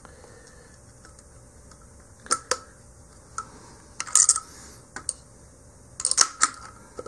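Scattered metallic clicks and clinks of a ratchet driver and socket being worked and pulled off a tank-band bolt's nut. A few single clicks come first, then two quick clusters about four and six seconds in.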